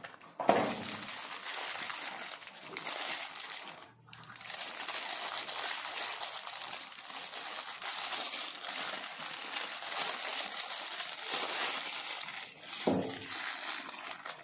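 Thin clear plastic bag crinkling and rustling as a wristwatch is handled inside it and worked out of the wrapping, with a brief pause about four seconds in and a couple of soft knocks of the watch against the table.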